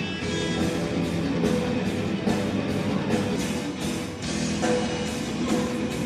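Heavy metal music with guitars and a steady drum beat.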